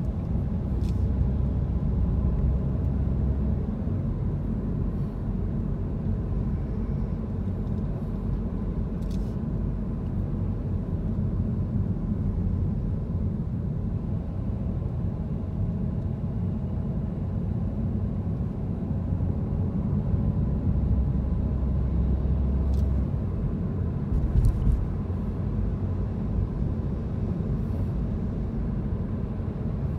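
A car driving on city streets: a steady low rumble of engine and road noise, with a few faint clicks.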